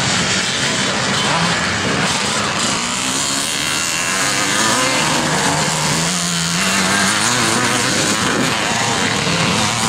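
Engines of several twin-shock motocross bikes racing on a dirt track, overlapping and revving up and down in pitch as the riders ride through.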